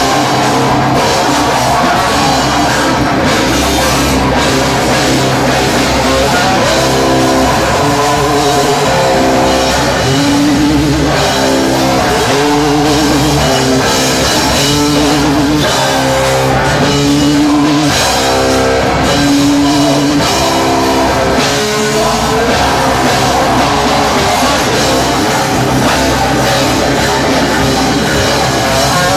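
Loud live rock band playing with electric guitar, bass and drums. In the middle there is a riff of long held notes that step up and down in pitch.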